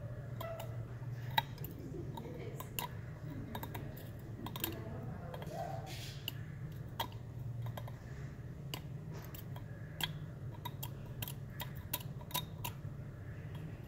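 A thin metal pick scraping and clicking against a freshly cast aluminum piece as it digs mold material out of its crevices: many small irregular clicks and ticks, over a steady low hum.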